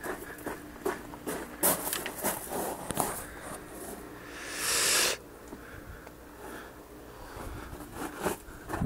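Scuffling, tapping and knocking from rough play with a dog, with one long hiss about halfway through that swells and cuts off suddenly.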